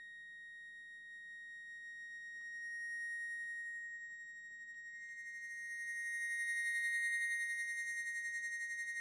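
Chromatic button accordion holding one high, steady note that swells and fades twice; about halfway through, a second note a little higher joins it.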